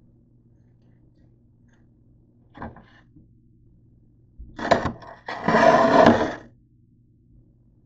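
Close handling noise: a short scrape, then two louder bursts of scraping and rubbing, the second lasting about a second, as the plate and camera are shifted by hand.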